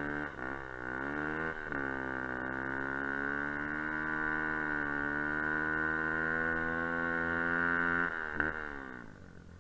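Kuba Black Cat dirt bike engine pulling under throttle in snow: the revs climb, drop sharply about a second and a half in as it shifts up, then hold fairly steady. Near the end the throttle closes and the engine falls back and quietens.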